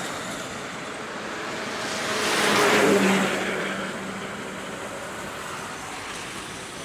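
Traffic running noise on a bridge: a steady rush of vehicles and tyres that swells as a vehicle passes close about three seconds in, then settles back.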